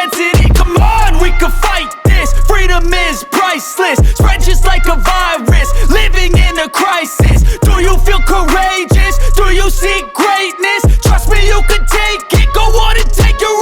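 Hip hop music with a heavy bass beat that hits about once every second and a quarter.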